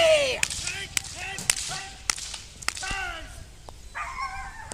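A whip cracking sharply over and over, about every half second, during a protection-dog long bite run, with short excited cries in between, the loudest right at the start.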